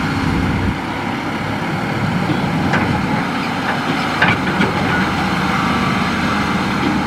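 Hitachi hydraulic excavator's diesel engine running steadily at work, with a few sharp knocks around the middle.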